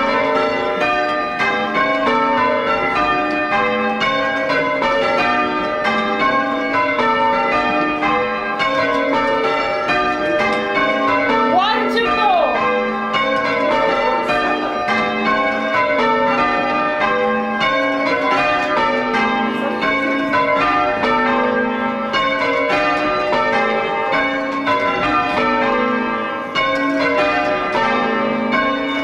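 Church tower bells change ringing: a ring of bells rung by rope from the ringing chamber beneath them, each bell striking in turn in a steady, continuous round of overlapping chimes.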